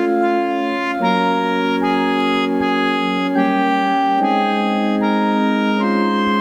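Organ playing sustained hymn chords, moving to a new chord about once a second: the instrumental introduction to a hymn.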